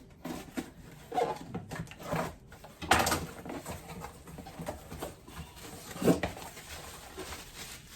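A cookware pot being unpacked by hand: packaging rustling and scattered knocks, with louder knocks about three seconds in and again about six seconds in.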